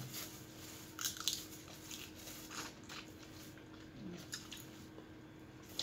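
Cooked shrimp being peeled by hand: the shell crackles and snaps in a few sharp clicks, loudest about a second in, with fainter clicks later.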